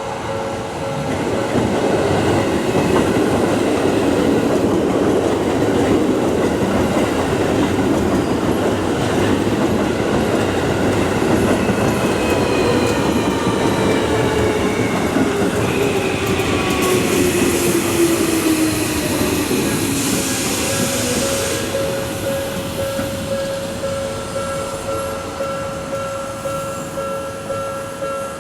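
Tokyo Metro 16000 series electric train running past over a level crossing, with wheel-on-rail noise and a motor whine that falls in pitch as the train slows. The crossing's warning bell rings at the start, is drowned out, and is heard again as the train noise fades near the end.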